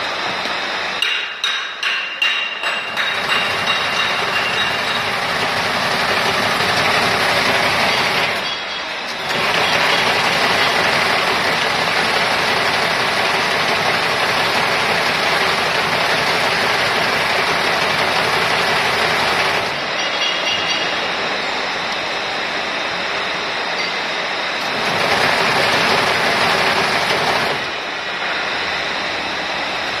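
Wire harness braiding machine running, a loud steady metallic clatter from its circling bobbin carriers. There are uneven clinks in the first few seconds, and the noise dips briefly about nine seconds in and again near the end.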